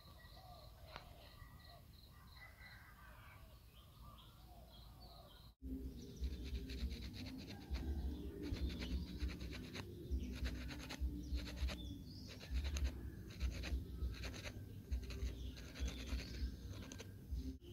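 Birds chirping faintly for the first few seconds; then, after a sudden cut, sandpaper rubbing back and forth over a joint of a thin bamboo fishing rod in rapid repeated strokes, with a low rumble underneath.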